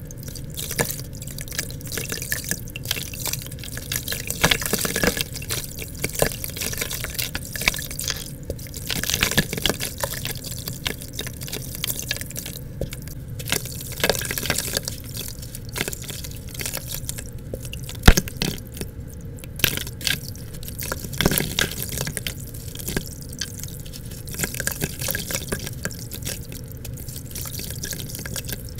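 Soaked chunks of red gritty dirt crumbling and squishing between fingers into a bucket of muddy water, with dripping and small splashes and many small irregular crackles. A single sharp click comes about eighteen seconds in.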